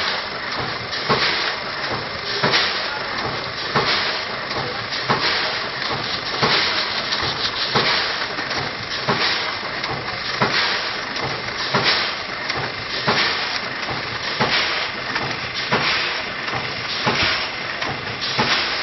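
Vertical form-fill-seal granule packing machine running, its sealing jaws closing with a sharp knock about once every 1.3 seconds over a steady hiss, each stroke sealing and cutting off one bag.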